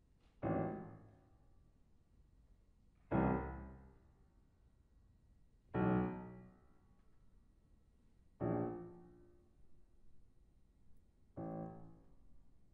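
Yamaha grand piano playing five loud, widely spaced chords about every two and a half to three seconds. Each chord is struck sharply and left to ring and fade, and the last one is softer and shorter.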